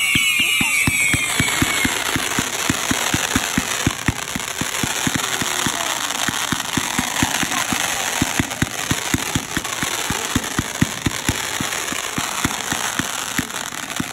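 Fireworks going off: a fast, irregular string of sharp pops, about five a second, over a steady crackling hiss. A whistle dies away in the first two seconds.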